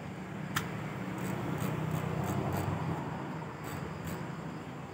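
Spinning reel being cranked by hand: the rotor and gears whir, swelling for a couple of seconds, with a sharp click about half a second in and a few light ticks.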